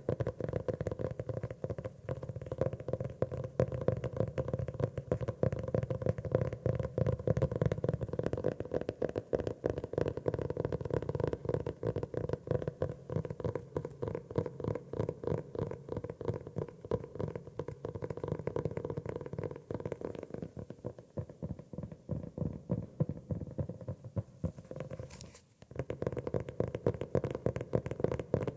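Fast, continuous finger tapping on a notebook cover, dozens of soft taps running together, with a brief pause about three quarters of the way through.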